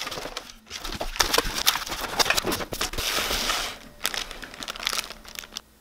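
White cardboard mailer box being folded and handled on a wooden table, with scraping, creasing and taps of the cardboard and a crinkling rustle, loudest in the middle.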